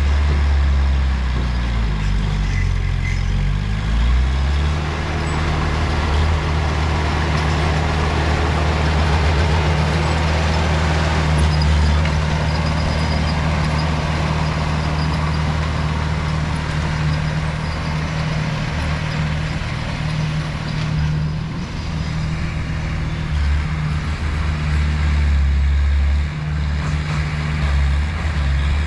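Heavy diesel engine of earthmoving machinery running under load, its pitch dipping and coming back up about two to four seconds in, then holding steady.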